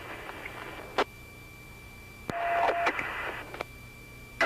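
Police two-way radio keying up with no voice: bursts of open-channel static, each ending in a squelch click, with a short steady beep in the second burst.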